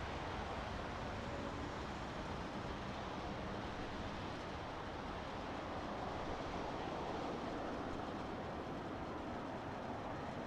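Boeing 767-300ER on final approach, a steady distant jet engine rumble with faint whining tones.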